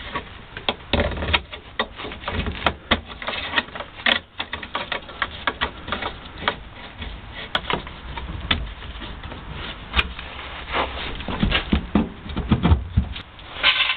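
Rapid, irregular clicks, knocks and rustling from a gloved hand handling and pushing a flexible heater pipe into place on a rear heater unit.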